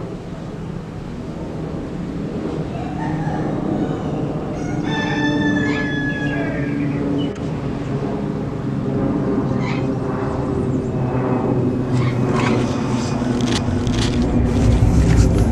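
A rooster crows, one long call about five seconds in, over the steady low rumble of a Boeing 747-200 freighter's engines climbing out overhead. The jet rumble swells near the end, with a few scattered knocks.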